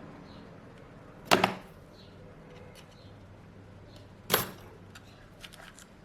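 Two sharp knocks about three seconds apart, with a few faint ticks near the end: tools and objects being handled on an electronics repair bench.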